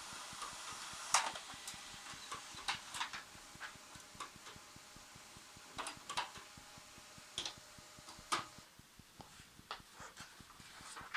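HP LaserJet M104a laser printer running, with irregular clicks and knocks over a faint steady hum that stops about eight seconds in. It is the clattering fault being hunted, which the repairer suspects is the pickup clutch solenoid clacking and the paper lift plate moving.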